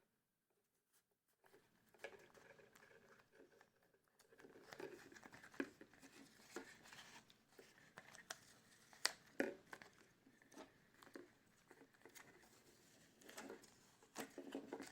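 Faint handling noise of paper or thin material, rustling and crinkling with scattered sharp clicks, starting about two seconds in.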